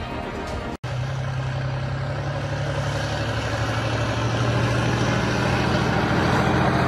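Heavy vehicle engine running steadily: a deep, constant hum over a broad rumble that grows slowly louder. It comes in after a brief break just under a second in.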